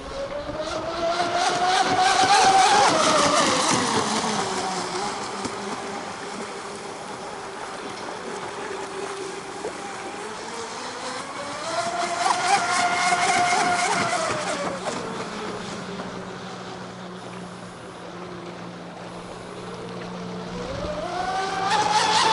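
Radio-controlled catamaran boat running on the water, its motor tone rising and falling in pitch and loudness as it makes passes: loudest about two seconds in, again about halfway through, and rising once more near the end.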